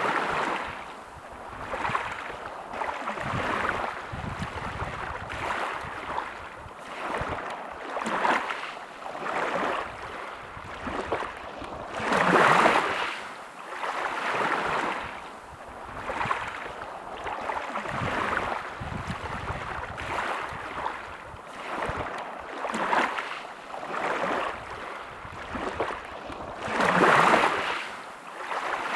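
Sea waves washing in and drawing back in a steady run of surges every second or two, with two larger waves breaking about twelve seconds in and near the end.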